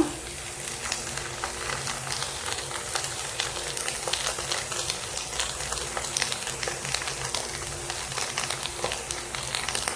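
Sliced onions sautéing in hot oil in a pan, a steady sizzle with many small crackles.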